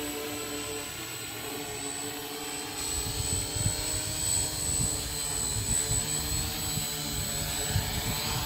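F450 quadcopter's brushless motors and propellers whirring steadily as it descends to land under automatic return-to-home. From about three seconds in, a low gusty rumble joins.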